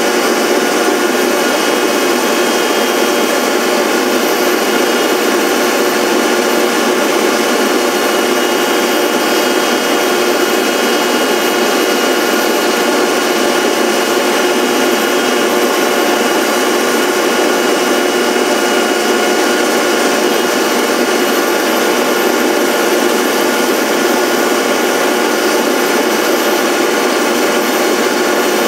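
Motor-driven cutter on a rose engine lathe running steadily while cutting the workpiece, an even, unchanging whine with cutting noise.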